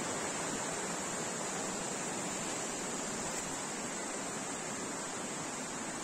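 Stream water rushing and splashing steadily over rocks, an even unbroken sound, with a steady high-pitched hiss above it.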